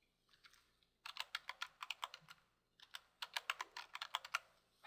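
Typing on a computer keyboard: two short runs of keystrokes with a brief pause between them, as a word is typed into one field and then into the next.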